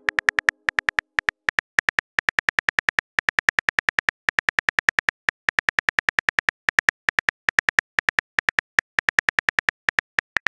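Rapid run of short, identical keyboard-tap clicks from a texting app's typing sound, one per letter typed, several a second with brief pauses between words.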